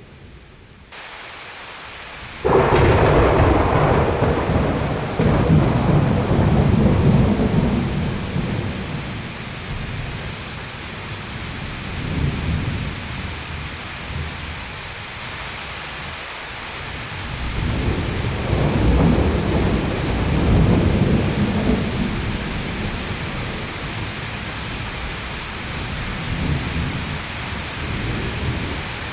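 Thunderstorm: steady rain with two long rolls of thunder. The first breaks in suddenly about two seconds in and rumbles for several seconds; the second swells up about two-thirds of the way through and dies away.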